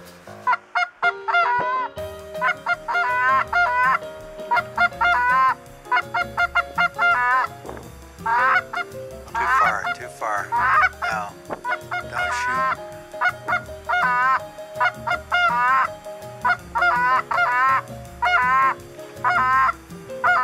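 Geese honking in quick runs of several calls, one run after another.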